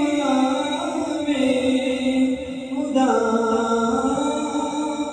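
A male singer reciting a naat, an Islamic devotional poem, without instruments, holding long drawn-out notes; a new phrase begins about three seconds in.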